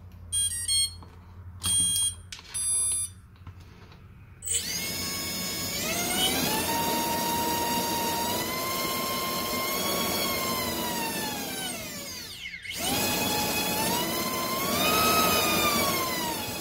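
Three short groups of electronic start-up beeps from the ESC as a 4S battery is connected. Then an AOKFLY RV1407 3700KV brushless motor with a Gemfan Flash 3052 propeller on a thrust stand spins up to a high, steady whine and winds down to a stop about eight seconds later. It revs up again and starts winding down near the end.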